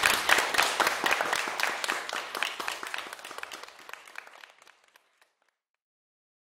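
Audience applauding, the clapping fading out over about five seconds into silence.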